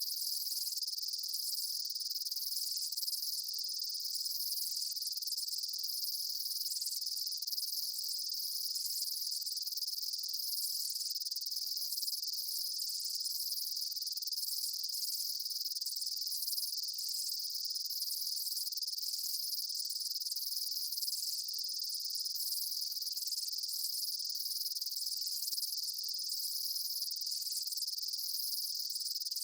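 A dense chorus of late-summer field insects: a steady, high, unbroken trill with faster pulsing calls layered above it. A faint accent recurs about every two seconds.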